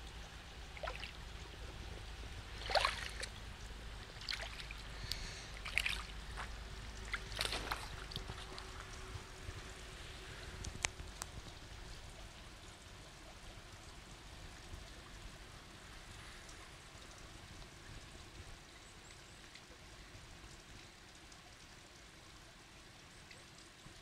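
Shallow water trickling over stones, with a handful of short splashes and drips in the first half, then settling into a faint steady trickle.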